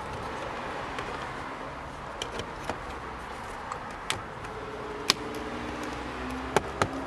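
Scattered sharp clicks and taps of plastic door-trim parts being handled and set into place, about seven in all, over a steady background hum.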